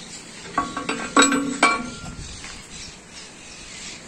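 A few sharp metallic clanks, bunched between about half a second and two seconds in, each leaving a brief ringing tone as metal parts knock together.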